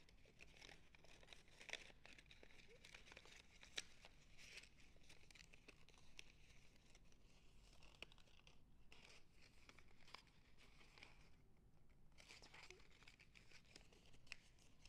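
Faint rustling and crinkling of folded origami paper being handled, as one folded unit's flap is slid into the pocket of another, with small sharp crackles and ticks from the paper edges.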